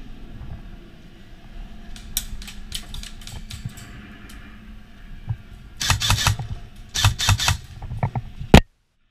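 Airsoft guns firing: scattered single shots, then two short rapid full-auto bursts about a second apart, ending in one sharp crack before the sound cuts off abruptly.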